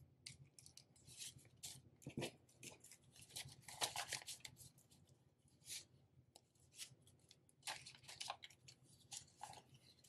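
Paper banknotes being counted and shuffled by hand, a quick run of faint, crisp flicks and rustles with a few louder swishes near the middle and near the end.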